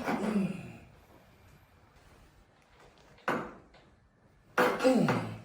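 Chiropractic adjustment: sudden thrusts landing as short thuds, at the start, a little over three seconds in and near the end. The first and last come with a falling groan from the patient.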